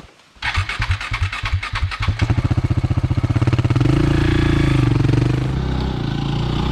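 Single-cylinder dual-sport motorcycle engine starting up about half a second in, firing in separate beats at first, then settling into steady running with a brief rise in revs near the middle.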